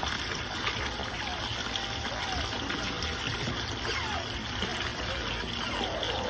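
Steady rushing of running water in an otter's aquarium tank, with faint short squeaky glides now and then.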